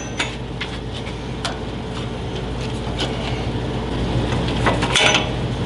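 A tap cutting threads into a drilled hole in a steel hole saw arbor: scattered scraping clicks over a steady low hum that gets slightly louder toward the end.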